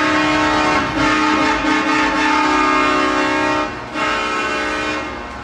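Truck air horn sounding in long, loud blasts with several notes at once, broken off briefly about a second in and again near four seconds, then fading out.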